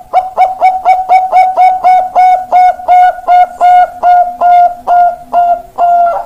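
Bangkok perkutut (zebra dove) singing: a long run of short, even-pitched coos, about five a second at first, slowing to about two a second with longer, drawn-out notes near the end.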